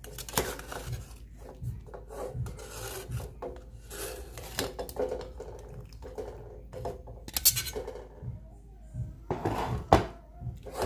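A perforated metal skimmer scraping and clinking against the inside of an aluminium pot as boiled broccoli is scooped out of the water: irregular scrapes, with sharper knocks about halfway through and near the end.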